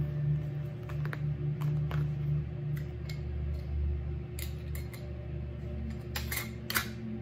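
Paper crinkling and a metal canning jar band clicking and scraping against a glass mason jar as it is set over the paper, in short sharp clicks, most of them in the second half. A steady low hum runs underneath.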